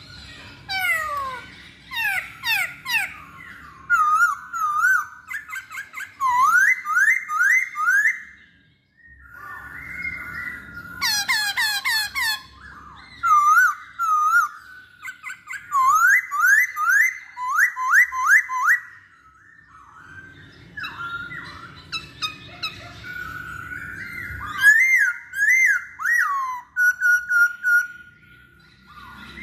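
Masked laughingthrush (poksay Hongkong) singing: varied loud whistled phrases and runs of rising, slurred whistles, in bouts broken by short pauses, with a burst of fast, high chattering notes about eleven seconds in.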